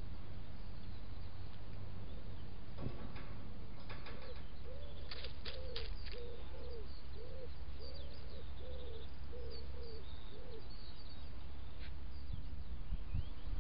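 A pigeon cooing: a run of about eight low, evenly spaced coos over several seconds. Faint high songbird chirps and a few sharp clicks sound at the same time.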